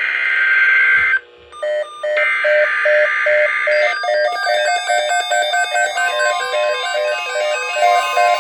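Emergency Alert System SAME header tones: two harsh, buzzing digital data bursts, one ending about a second in and the next running from about two to four seconds. A melody of short repeated notes plays under them and carries on alone afterwards.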